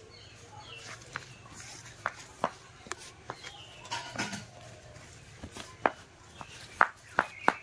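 A stick dragged and flicked over a concrete yard, scraping and tapping irregularly, with the loudest sharp taps coming in quick succession near the end.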